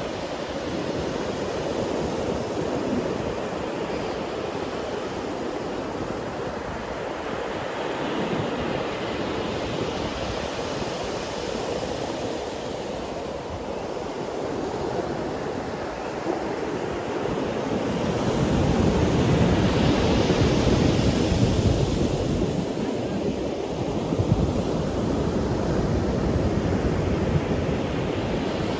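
Ocean waves breaking and washing up a beach, a steady surf that swells and ebbs. The loudest wave comes about two-thirds of the way through.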